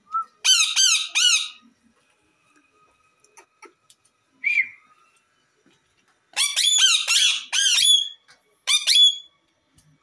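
Rose-ringed (Indian ringneck) parakeets squawking in short harsh calls. There is a quick run of three about half a second in, a single call midway, then a rapid string of calls from about six seconds in and two more near the end.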